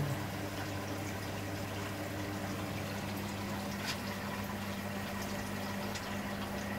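Aquarium pump humming steadily, with air bubbles and water churning in the tank, and a light tick about four seconds in.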